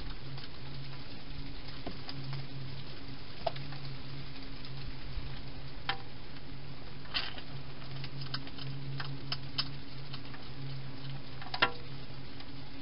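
Wild hedgehog eating inside a clear plastic feeding box: scattered short chewing and crunching clicks at an irregular pace, the loudest near the end, over a steady low hum.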